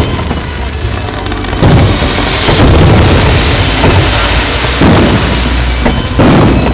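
Aerial fireworks bursting in a rapid series of loud booms, about one every second or so, with a dense crackle of fizzing shells between them.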